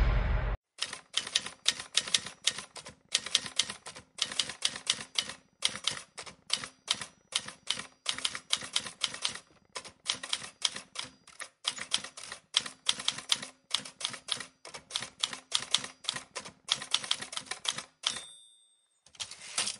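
Typewriter sound effect: rapid runs of key clacks, several a second, broken by short pauses, ending with a short bell-like ring about eighteen seconds in. A louder rush of noise cuts off half a second in, before the clacking starts.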